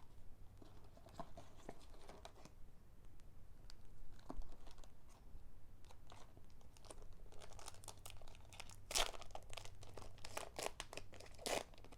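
Foil booster pack wrapper being torn open and crinkled, with faint irregular crackling that gets busier about nine seconds in and again near the end.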